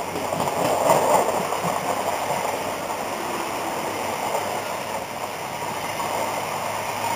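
Steady rushing and rumbling of a First Great Western HST's Mk3 coaches passing close by at speed, wheels running on the rails, loudest about a second in.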